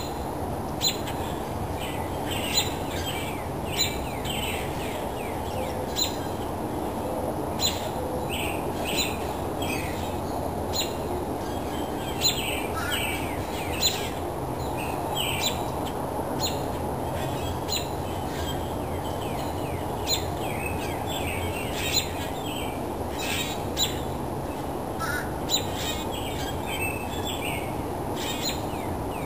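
Birds calling at dawn: short, sharp calls every second or two over a steady low rumble.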